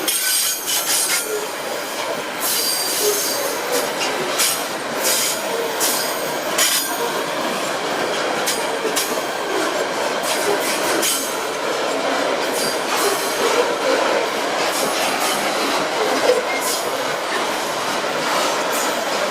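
Freight train wagons rolling past on steel rails, with wheels squealing and a steady run of clicks over the rail joints.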